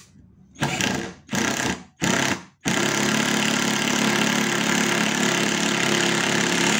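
Ingco 12 V cordless impact driver driving a long screw into a wooden board: three short trigger bursts, then one long continuous run. The tool slows and hammers as the screw meets resistance, the impact mechanism delivering its maximum torque.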